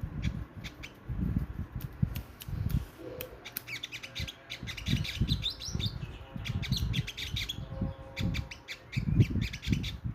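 Sogok ontong bird calling in runs of rapid, high chirps and clicks, the kind of recording used as a lure call to attract the bird. Under the calls are repeated low thumping rumbles.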